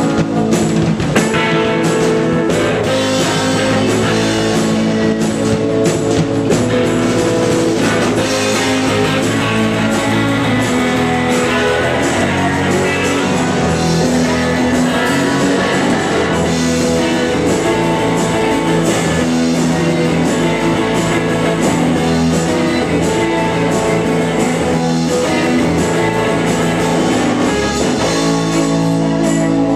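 Rock band playing live: electric guitar, bass guitar and drum kit, loud and steady throughout.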